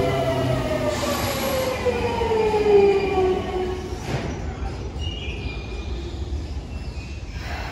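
Semboku Rapid Railway 5000 series electric train's Hitachi GTO-VVVF inverter and traction motors whining in a stack of tones that fall steadily in pitch as the train brakes into the station. About four seconds in the whine fades away, and a few faint high brake or wheel squeals follow as the train rolls slowly toward its stop.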